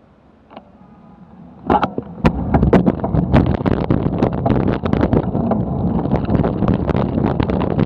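Handlebar-mounted camera on a bicycle picking up road rumble, rattling and wind buffeting as the bike pulls away and rides over the asphalt. It starts suddenly about two seconds in, after a quiet start, and is full of sharp knocks from bumps in the road.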